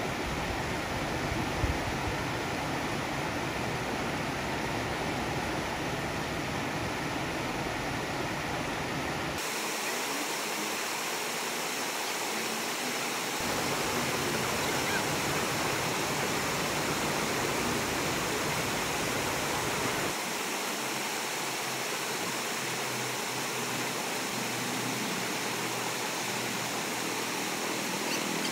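Steady rush of water pouring out of culvert pipes and splashing into a shallow stream. Its low rumble drops out and comes back abruptly a few times.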